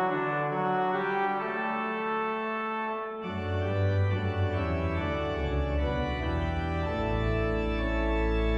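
Organ playing slow held chords, with deep bass notes coming in about three seconds in and a still lower bass note joining about seven seconds in.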